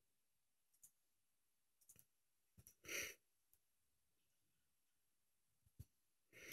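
Near silence broken by a few faint clicks and a short breathy huff about three seconds in, with another huff at the very end.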